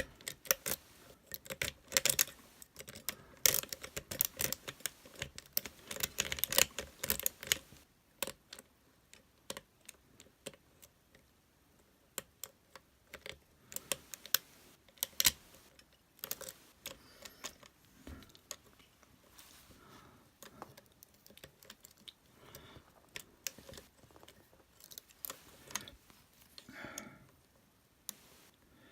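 Lock picks working inside a Master Lock lockout/tagout padlock, making small metallic clicks and scrapes: a dense run for the first several seconds, then sparser clicks.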